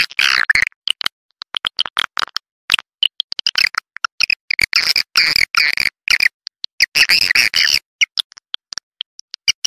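Swiftlet calls: rapid clicking and buzzy chattering twitters in bursts, broken by short silent gaps. This is the kind of recorded swiftlet sound that is played to draw swiftlets into a nesting house.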